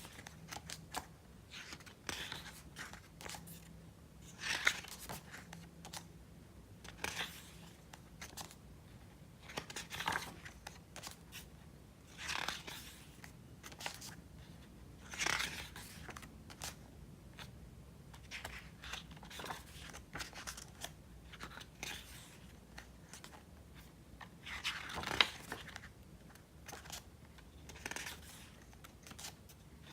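Pages of a thick photo book being turned by hand: short paper swishes every two to three seconds, at uneven intervals.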